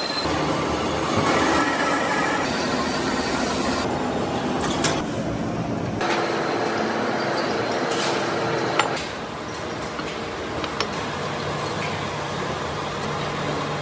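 Large engine lathe running, its turning tool cutting a spinning steel disc with a steady metallic grinding and squeal, the machine noise carrying on through the later setup work. A single sharp metallic knock stands out just before nine seconds in.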